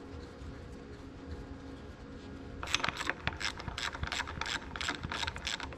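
Ratchet wrench clicking at about six clicks a second, starting nearly three seconds in, as bolts are run in to mount the injection pump.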